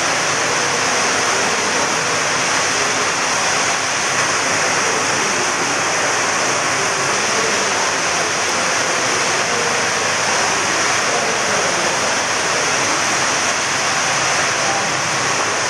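Loud, steady rushing noise, even and unbroken, like a constant roar of rushing water or static.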